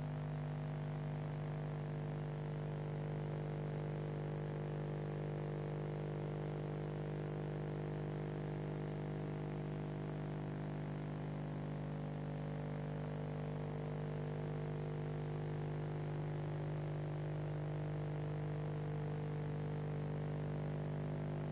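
Steady electrical mains hum with a buzzing edge, one unchanging low tone and its overtones.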